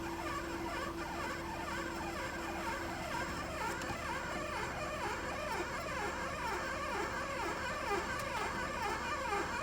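NEC 5750C printer running with an abnormal noise: rapid, repeated chirping squeaks over its mechanical running, cutting off near the end.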